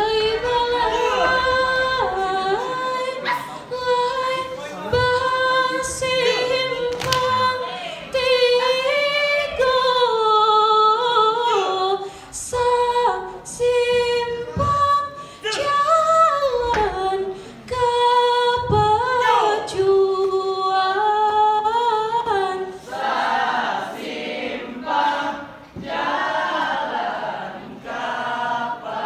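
Unaccompanied group singing of a Minangkabau song: long held notes that slide and bend between phrases. Sharp smacks break in here and there.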